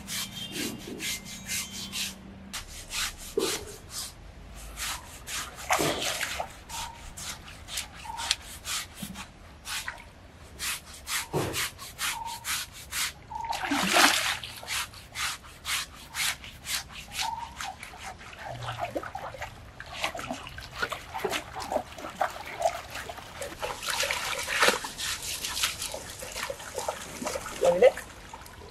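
Coconut husk scrubbed hard and fast over a wet elephant's hide, rasping in quick repeated strokes at about four a second, with water splashing about halfway through and again near the end.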